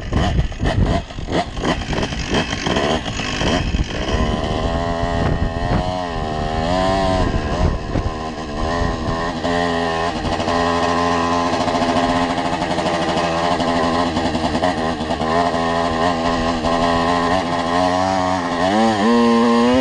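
Small Tomos automatic two-stroke engine firing raggedly and unevenly at first, then revving up and down and settling into a steadier run, rising again near the end. It runs poorly, which the rider puts down to the wrong carburettor jet.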